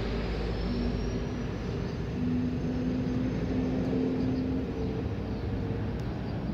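Steady engine rumble with a low droning hum that grows stronger about two seconds in, and a faint high whine that slowly rises in pitch.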